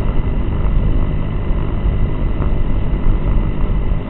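Multirotor camera drone's electric motors and propellers running steadily, heard through the onboard action camera's microphone as a loud, dense hum with a faint steady high whine.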